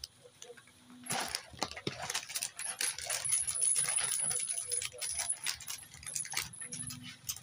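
The parts of a chest-mount phone holder, small plastic and metal pieces, clicking and rattling as they are handled, in an irregular run of light clicks.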